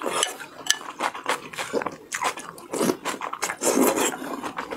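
Mouth sounds of eating noodles in broth: several wet slurps as strands are sucked in, with chewing and smacking between them.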